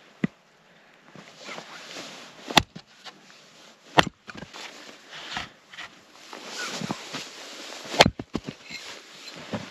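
Axe splitting firewood logs on a wooden chopping block: three loud, sharp strikes about two seconds, one and a half seconds and four seconds apart, the loudest near the end, after a lighter knock at the start. Boots crunch and shuffle in the snow between strikes.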